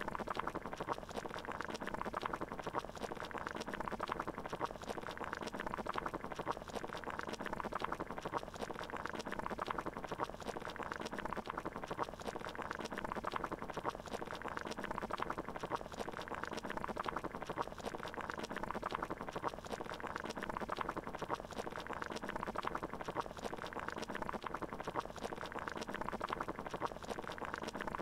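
Water at a steady boil: dense, even bubbling that does not change.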